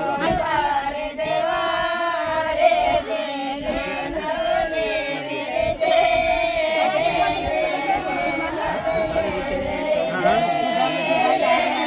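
A group of women singing a Rajasthani mayra folk song together, voices holding long, slowly wavering notes.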